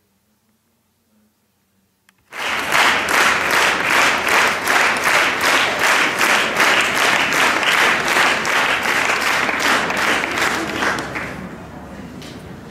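Near silence for about two seconds, then an audience clapping in a steady rhythm, starting suddenly and dying down near the end.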